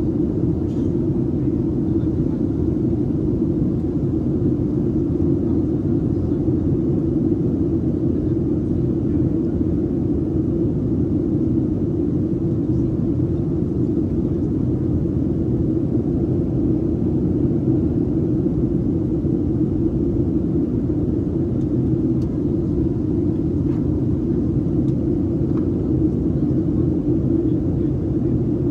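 Steady in-flight cabin rumble of a Boeing 737-700 on approach: engine and airflow noise heard from inside the cabin, deep and even throughout.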